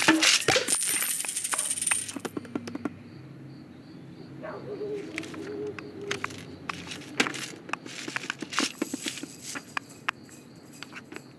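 Film sound effects: a loud clattering flurry of sharp metallic clicks and jingles in the first two seconds, then scattered small clicks and taps over a faint, evenly repeating high chirp.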